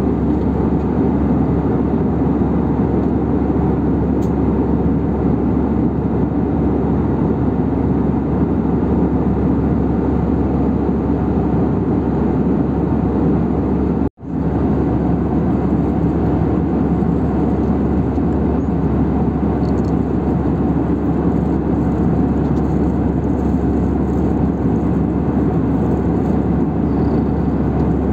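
Steady cabin noise of an Airbus A319 in flight: engine and airflow rush heard from inside the cabin, broken by a brief gap of near silence about halfway through.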